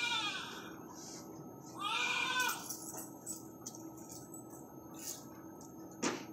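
A person imitating a pet animal: two drawn-out, meow-like calls that rise and fall in pitch, one at the start and another about two seconds in. A short knock comes near the end.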